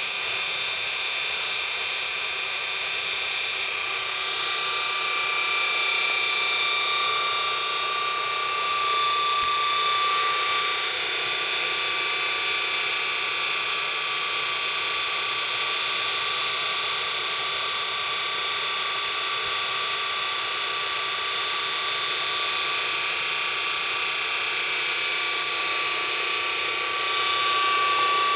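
Early General Electric 9-inch DC electric motor, built for the Bradley GTE electric kit car, running unloaded on 12 volts with a steady whine that holds even throughout.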